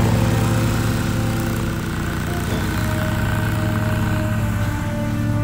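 Exmark Lazer Z zero-turn mower running steadily with its blades engaged, cutting grass; the engine hum eases slightly as it moves off and firms up again near the end.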